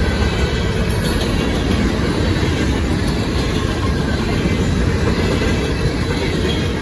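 Grain train's freight cars rolling past close by, a steady loud rumble of wheels on rail.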